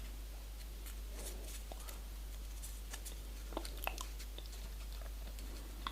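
Sheet of folded origami paper being handled, with faint scattered crinkles and small clicks, a few sharper ones a little past halfway, over a low steady hum.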